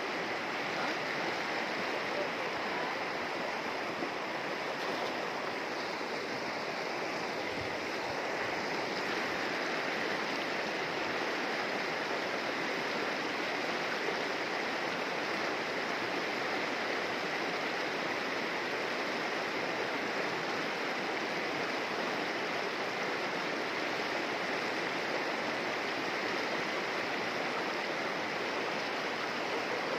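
A shallow, rocky river running steadily over stones and boulders: a constant rush of flowing water.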